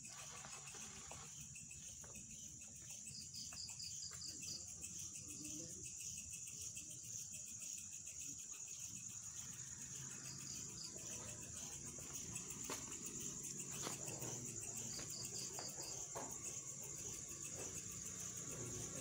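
Crickets trilling steadily at a high pitch, with short rapid pulsed chirps from another insect twice.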